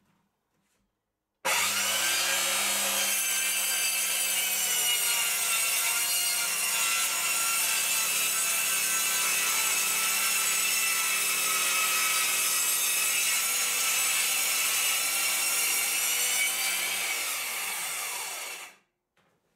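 Makita 5604R circular saw starting up about a second and a half in and running steadily, its blade ripping a wooden strip along the grain with the blade tilted while also cutting a shallow slot in the tabletop beneath. Near the end the saw is switched off and spins down, its whine falling in pitch as it stops.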